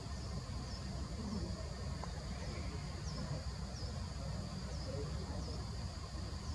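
Steady high-pitched drone of forest insects, with a short falling chirp repeating about once a second, over a low steady rumble.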